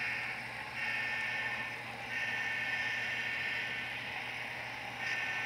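Model railroad grade-crossing bells sounding from an electronic sound module as the train passes the crossing: a ringing tone of several pitches that comes in stretches of one to two seconds with short breaks.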